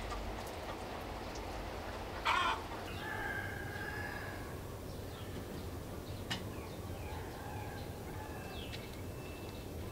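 Chickens calling, with a rooster's held crow about three seconds in, over a steady background hiss. A short loud burst of noise comes just before the crow.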